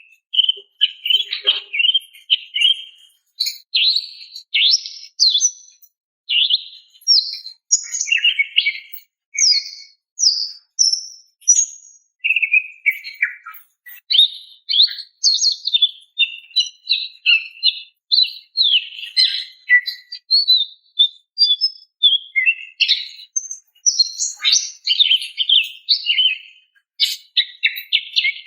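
Female greater green leafbird (cucak ijo) calling: a fast, varied run of high chirps and short whistled notes in phrases with brief pauses. This is the female's call to attract a male.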